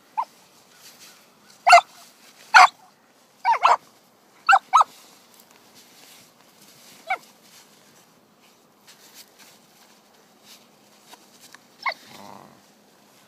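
Australian shepherd puppy barking in short, sharp yaps while playing in snow: about nine barks at irregular intervals, some in quick pairs, with a longer gap in the middle.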